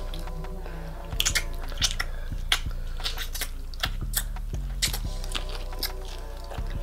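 Close-miked chewing and wet mouth smacks as two people eat soft lobster meat, with a dozen or so short sharp smacks spread through. A low steady hum runs underneath.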